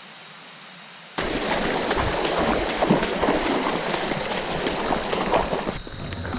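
Rushing water from a river or stream. A faint steady hiss jumps suddenly about a second in to a loud, close rush with irregular sharp splashes and knocks.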